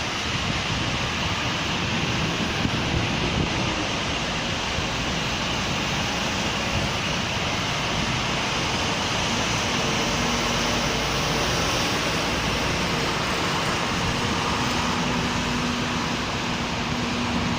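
Steady rain on a city street with the hiss of passing traffic on wet road. A faint low steady hum joins about ten seconds in.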